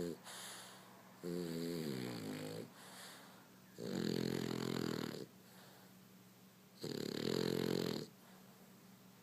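French bulldog snoring loudly: three long, pitched snores about three seconds apart, the first falling in pitch, with quieter breaths between.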